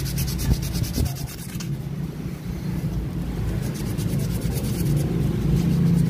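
Sandpaper rubbing against the pitted face of a Honda TMX ignition contact point as it is dressed by hand, in quick, even strokes. A steady low rumble of road traffic runs underneath and grows louder near the end.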